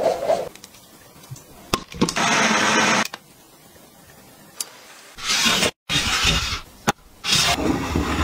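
Kitchen preparation noises in quick succession: several short bursts of mixing and scraping noise with sharp clicks of utensils and containers on glass and foil between them, separated by quiet gaps.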